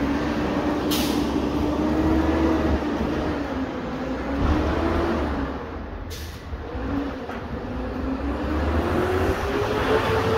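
Garbage truck engine running with a heavy low rumble, its pitch drifting up and down and climbing near the end, with two short hisses of air, about a second in and again about six seconds in.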